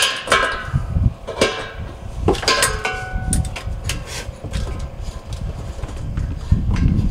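Metal clinks and knocks of an adjustable wrench working the reverse-threaded regulator fitting on an aluminium propane tank. Several strikes ring briefly, as struck metal does. A low rumble sets in near the end.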